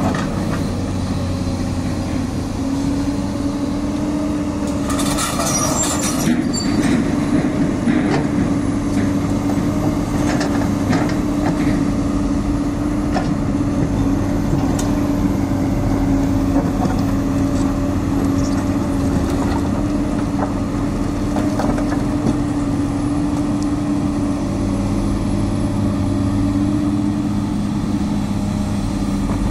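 Komatsu crawler excavator's diesel engine running steadily at working revs while it digs in broken concrete rubble. A burst of scraping and clattering comes about five to six seconds in, with scattered knocks of concrete after it.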